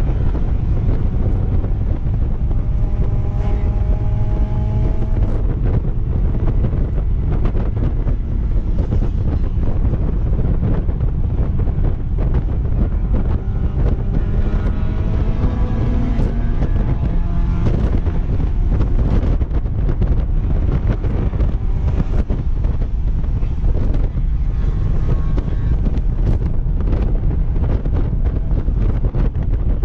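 Heavy wind buffeting on the microphone in an open-top Mazda MX-5 Miata at speed, over its four-cylinder engine pulling under load, the engine's pitch rising through the revs twice, about two seconds in and again about thirteen seconds in.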